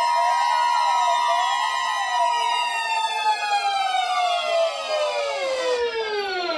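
Several sirens sounding together, one wailing up and down about once a second over steady tones. From about two seconds in, all of them slide down in pitch together, dropping steeply near the end.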